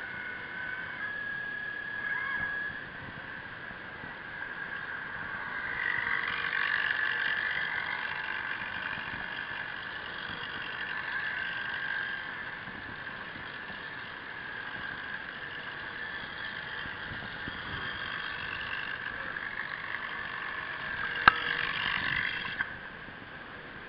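Electric motors of radio-controlled model submarines whining underwater, several tones shifting in pitch as they speed up and slow down. One sharp click about 21 seconds in.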